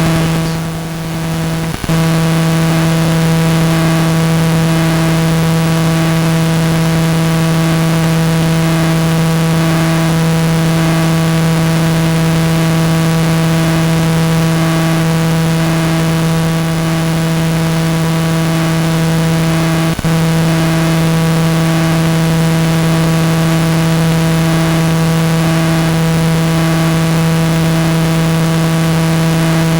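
A steady, loud buzzing hum with even overtones that never changes in pitch, broken by two very short dropouts, about two seconds in and again about twenty seconds in.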